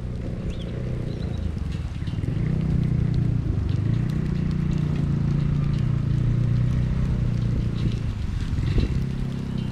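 A steady low engine-like drone that swells about two seconds in, with a few faint, short high chirps, likely small birds, above it.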